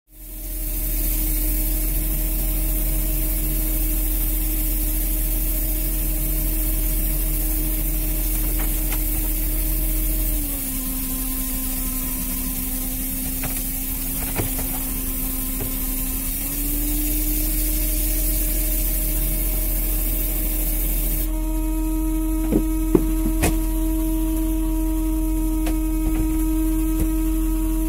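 A fishing boat's machinery runs with a steady drone. Its pitch dips slightly for several seconds in the middle, then climbs back. A few sharp knocks come near the end.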